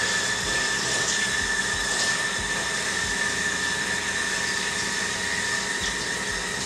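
Kitchen tap running steadily, a rushing hiss with a thin steady whistle through it, as raw chicken fillets are rinsed under the stream.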